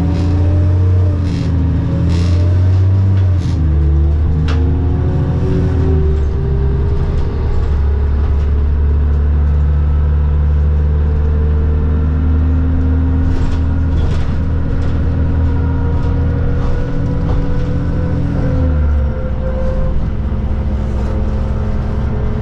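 New Flyer D40LFR diesel transit bus heard from inside the cabin, its engine pulling under load. The engine pitch shifts up and down over the first few seconds and then holds steady. It drops to a lower note about nineteen seconds in, with occasional light rattles throughout.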